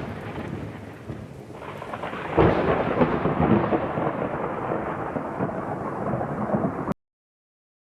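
Thunderstorm: thunder rumbling over rain, with a fresh sharp crack of thunder about two and a half seconds in that rolls on. It cuts off suddenly near the end.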